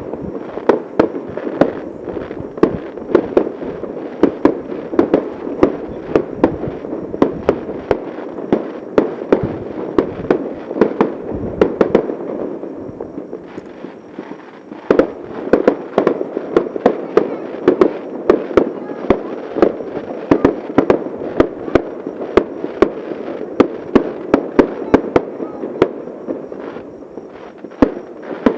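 Fireworks display: a rapid, continuous volley of sharp bangs from shells bursting overhead, several a second, with a short lull near the middle before the barrage resumes.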